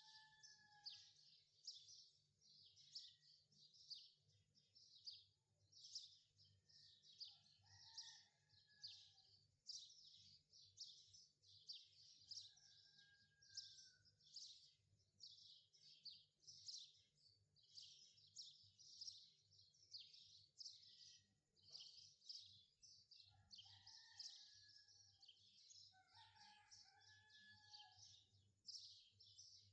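Faint birdsong: rapid high chirping runs on throughout, with a lower whistled call every few seconds.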